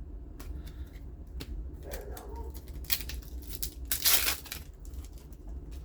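Trading card booster pack wrapper crinkling and tearing open amid clicks and rustling, loudest in a half-second rip about four seconds in.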